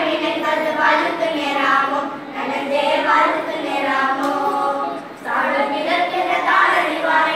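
A small group of schoolgirls singing together without accompaniment, with a short break between phrases about five seconds in.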